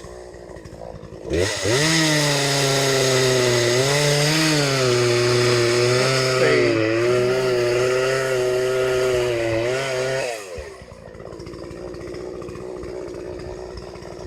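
Chainsaw revved up about a second in and cutting wood, its pitch dipping several times as the chain bites. It drops back to a quieter idle after about nine seconds.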